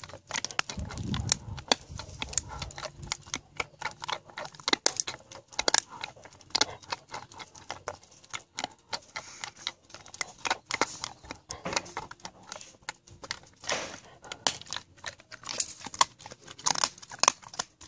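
Dog chewing a black walnut: irregular sharp cracks and crunches of the hard shell between her teeth, several a second, with pauses.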